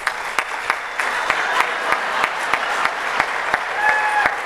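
Audience applauding: many hands clapping in a dense, steady patter, with a brief steady high tone heard through it near the end.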